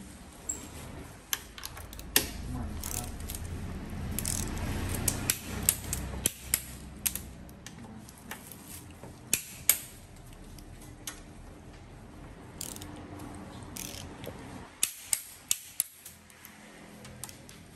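Socket torque wrench ratcheting as the handlebar clamp bolts are tightened: scattered sharp clicks, with a quick run of about five clicks about fifteen seconds in. A low steady rumble sits under the clicks from about two to six seconds in.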